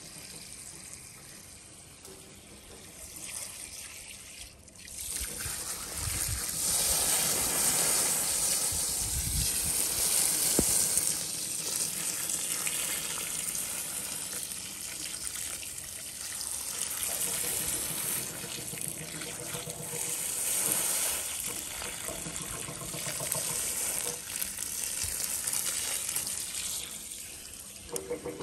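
Garden hose running, its water spraying onto a small mud-caked toy car and splashing on the grass as the mud is rinsed off. The spray starts about five seconds in and runs on, rising and easing in strength.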